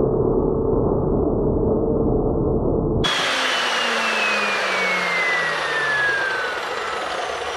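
Evolution S380CPS cold-cut chop saw cutting through a metal tube. About three seconds in, the cutting noise stops and the blade spins down with a steadily falling whine.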